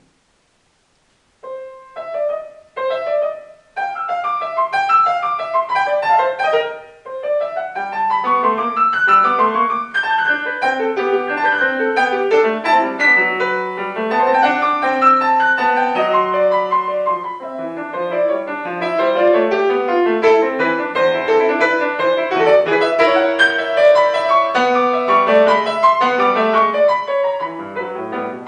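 C. Bechstein grand piano playing a polyphonic classical piece. The piano starts about a second and a half in with a few short, separate notes and pauses briefly near seven seconds. From then on it plays dense, interweaving lines without a break.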